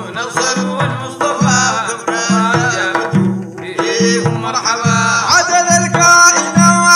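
Sudanese madeeh: male voices singing a praise song over hand-held frame drums beaten in a steady rhythm, about two strokes a second.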